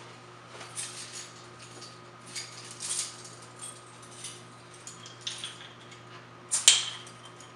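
Metal bottle opener scraping and clicking against a beer bottle's crown cap in repeated tries at prying it off, the loudest a sharp click near the end. The opener is one its owner thinks is due for replacing.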